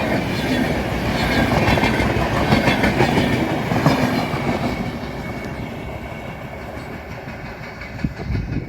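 Passenger express train running past, its wheels clattering rhythmically over the rail joints; the sound fades away over the second half as the train draws off.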